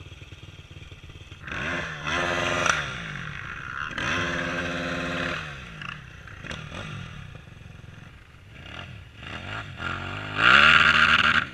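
Enduro motorcycle engine idling with a low, even pulse, revved up briefly three times: once about a second and a half in, again about four seconds in with the revs held for over a second, and hardest near the end.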